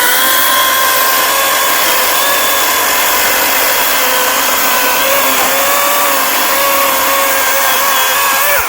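Workforce 18-inch 80-volt cordless battery chainsaw running flat out with a steady high electric whine and chain noise. Its pitch dips slightly a few times, then it cuts off abruptly near the end.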